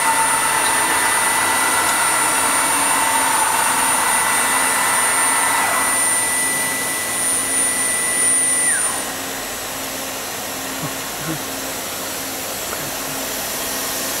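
Spindle of a swinging-head CNC foam milling machine running with a steady high whine over a loud hiss, then winding down in pitch about nine seconds in as the cut finishes. A softer steady hiss carries on after it stops.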